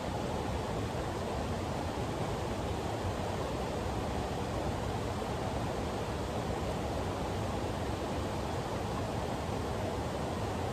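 Steady rush of flowing river water, an even noise with no separate splashes or knocks.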